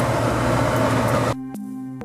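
The 2001 Dodge Ram 1500 van's heater/AC blower fan running on high, a loud steady rush of air with a low hum; the new fan switch now makes the high speed work. It cuts off suddenly a little over a second in, giving way to background music with sustained synthesizer tones.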